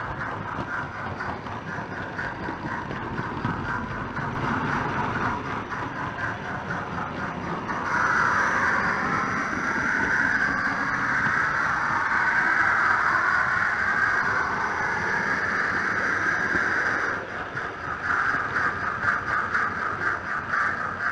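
Hornby OO-gauge model of a Britannia 4-6-2 steam locomotive running along the layout, its wheels on the rails and its sound decoder making a fast, even rhythm. About eight seconds in the sound grows louder and smoother for several seconds, then drops back to the rhythmic running near the end.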